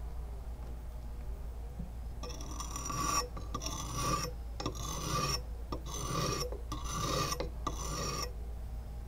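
A wet sharpening stone rubbed back and forth along the steel blade of a rubber-tapping knife, honing the new edge. About two seconds in the strokes begin: about six rasping strokes, each about a second long, with a high scraping ring.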